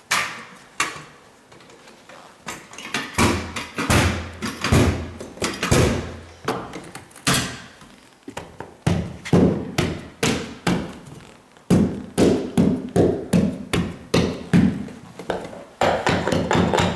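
Carpet installer's tools knocking as the carpet edge is worked onto the tack strip along the baseboard. Scattered sharp knocks give way about halfway through to a steady run of taps, about three a second.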